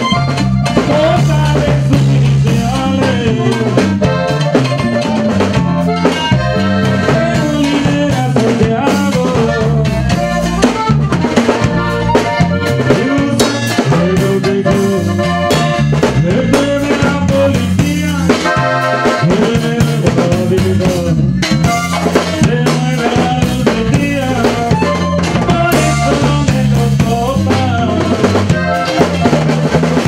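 A live norteño band playing an instrumental passage: a Hohner button accordion runs a quick melody over bajo sexto strumming and a drum kit keeping a steady beat.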